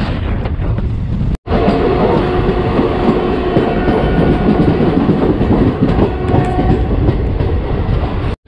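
Passenger train running at speed, heard from an open coach door: first a rush of wind on the microphone, then, after a sudden break about a second and a half in, the loud clatter and rumble of the coaches' wheels on the rails, with a few faint steady tones running through it.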